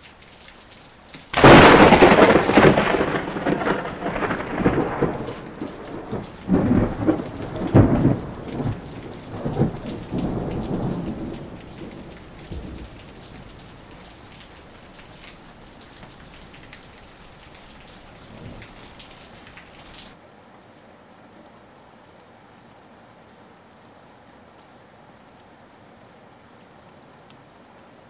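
Thunderstorm: steady rain with a sudden loud thunderclap about a second and a half in, followed by rolling rumbles that die away over the next ten seconds or so. The rain carries on after that, and about two-thirds of the way through its sound abruptly thins to a quieter hiss.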